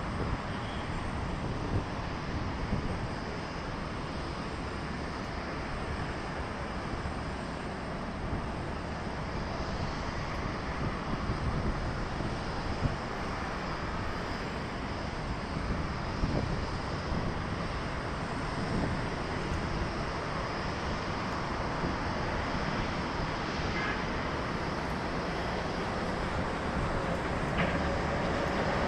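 Jet airliner engines, a steady rumble that grows a little louder near the end.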